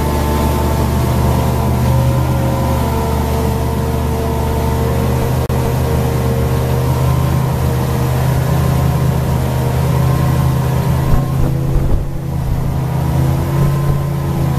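A single Evinrude E-TEC 200 HO outboard running steadily at around 4,000 RPM, pushing a twin-engine boat on plane on one engine, with a steady hiss over the drone. A brief rougher, uneven patch comes near the end.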